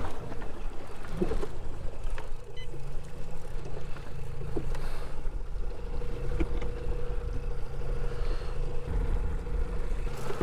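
Outboard motor running steadily at trolling speed, a low hum under wind and water noise.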